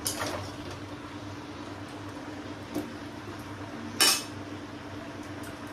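Metal spatula clanking against a kadai as a large batch of mixed vegetables is stirred while frying: a few separate strikes, the loudest about four seconds in.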